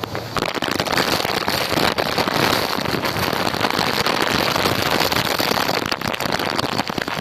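Strong storm wind: a loud, dense rushing noise full of crackling hits, growing louder about half a second in.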